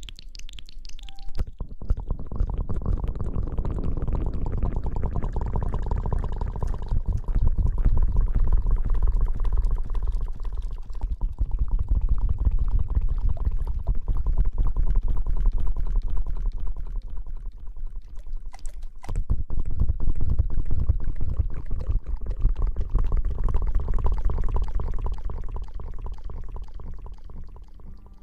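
Close-miked ASMR rubbing and rustling, a dense low crackling rumble that swells and fades in slow waves, with a brief break about two-thirds of the way through.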